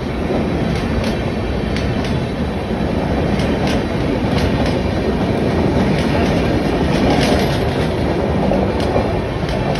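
Howrah–Mumbai express train's passenger coaches rolling past: a steady rumble with irregular sharp clicks of the wheels on the track.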